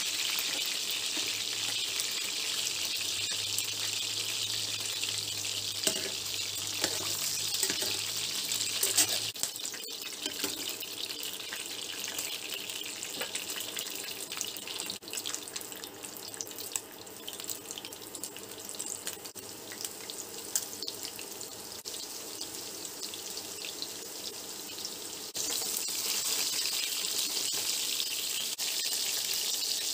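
Pork liver cubes frying in hot oil in a stainless steel pan, a steady sizzle, with metal utensils clicking against the pan several seconds in. The sizzle drops once the pan is emptied and comes back louder near the end as a fresh batch of floured liver goes into the oil.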